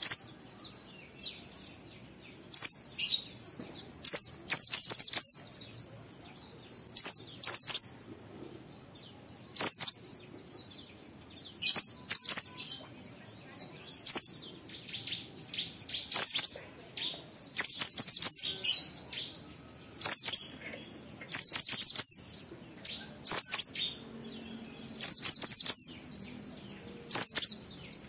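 White-eye (pleci) singing in the ngalas style: short clusters of one to five sharp, high quick notes, about one cluster every two seconds, with fainter chirps between.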